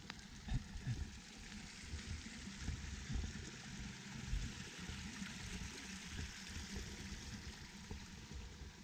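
Steady trickling and splashing of water running into a stone-edged pond, with irregular low thumps of footsteps on the path underneath.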